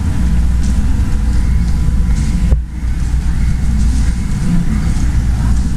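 Steady low rumble of a large airport terminal hall's ambience picked up on a moving handheld camera, with a brief dip about halfway through.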